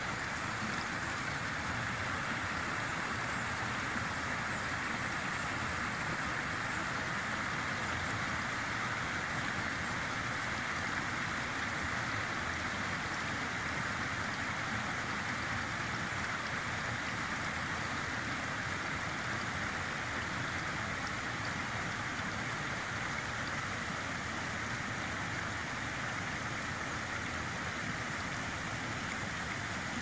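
River water flowing steadily over a low rock weir and around stones, an even, unbroken hiss of running water.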